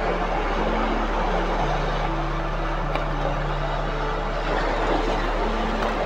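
Steady rushing noise of wind and surf on the microphone, with faint background music of low held notes that change every second or so underneath.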